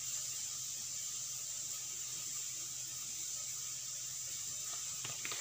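Steady hiss with a low hum under it, and a few faint light taps near the end.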